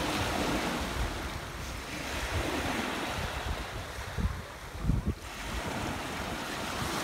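Small waves washing in and out on a pebble beach, with wind buffeting the microphone in gusts, the strongest about four to five seconds in.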